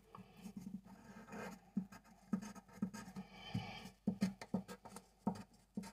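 A pen writing and drawing on paper: a run of short, faint scratching strokes.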